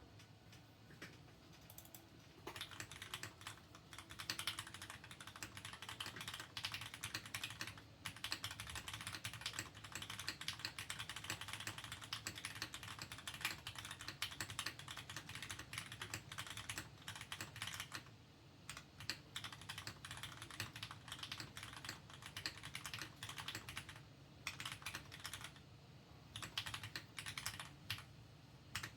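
Typing on a Mode Sonnet V1 mechanical keyboard with lubed, spring-swapped Cherry MX Black linear switches in an aluminum plate, foam-stack mounted. It is a fast, steady stream of key clacks that picks up a couple of seconds in, with two short pauses later on.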